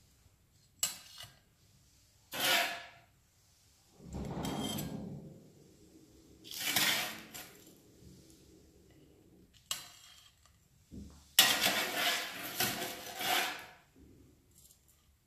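A metal spatula and fork scraping and clinking against a ceramic serving plate and a baking tray as baked vegetable patties are lifted and set down. The sound comes in about half a dozen separate strokes, with the longest and loudest stretch from about eleven to thirteen seconds in.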